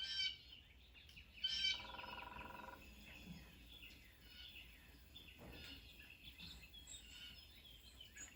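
Faint birds chirping, with a couple of soft knocks and a short steady tone lasting about a second, around two seconds in.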